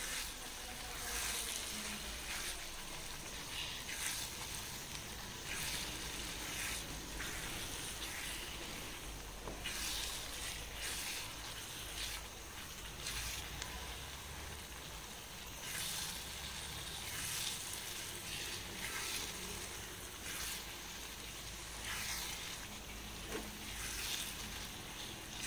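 Thick onion masala sizzling in a nonstick kadai while a wooden spatula stirs boiled eggs through it, with short scraping strokes about every second or so over a steady hiss.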